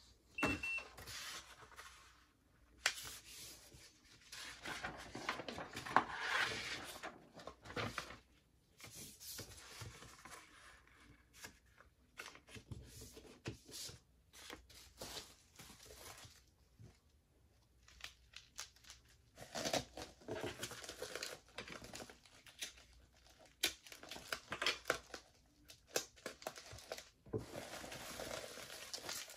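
Plastic bubble wrap crinkling and rustling in irregular bouts, with a few sharp crackles, as it is handled and wrapped around a ceramic mug, along with the rustle of a paper sheet being handled.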